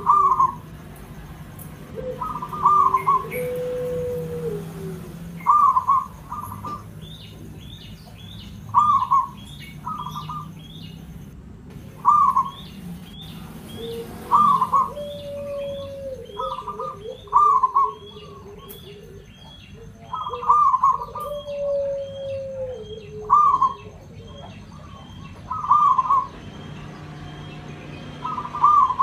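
Zebra dove (perkutut) cooing: short double notes repeated every two to three seconds, with a few longer, lower coos between them. A small bird chirps quickly and high in the background from about seven to nineteen seconds in.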